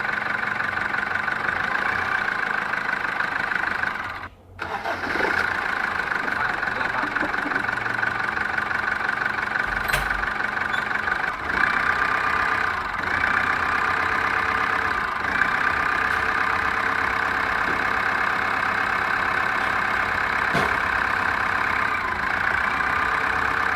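Foton Thunder's 2.8 L Cummins four-cylinder diesel running steadily at idle just after start-up, while air let into the fuel system by removing the injectors is bled out. The sound drops out briefly about four seconds in, and a couple of faint clicks come later.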